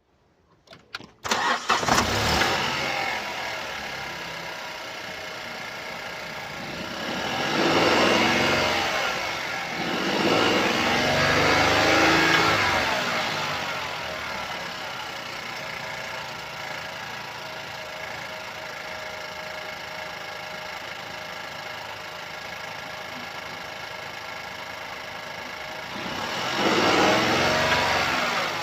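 Opel Astra K petrol engine cranked and catching about two seconds in, then idling and revved up and back down three times. The uploader attributes its distinctive engine noise to a stretched timing chain.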